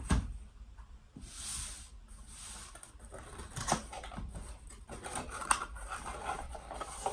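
A Funko Pop's cardboard box and plastic insert being handled to take the figure out: a thump, rustling of packaging sliding, and several sharp plastic clicks.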